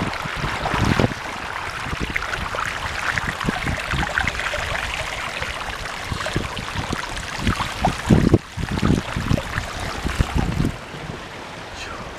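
Floodwater sloshing and splashing around a bicycle wading through thigh-deep water on a flooded street, with wind buffeting the microphone in low thumps. It gets quieter near the end.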